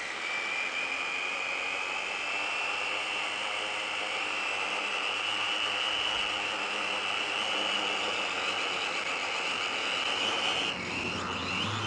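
Kaidang K70C quadcopter's motors and propellers spinning while it sits on the ground without lifting off: a steady high whine over a hiss of prop wash, rising slightly at the start and dipping about a second before the end. The owner puts it down to some motors not reaching full power and a battery he thinks is half dead.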